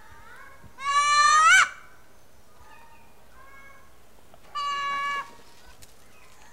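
Ring-tailed lemurs giving meow-like calls. Two loud calls come about three and a half seconds apart, the first rising in pitch at its end, with fainter calls between them.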